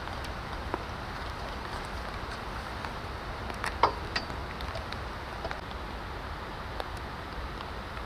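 Steady background noise with scattered light clicks, the loudest a quick cluster of clicks about halfway through.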